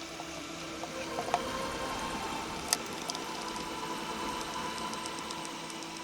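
Light mechanical clicking and rattling over a steady hum, with two sharper clicks, one about a second in and one nearly three seconds in.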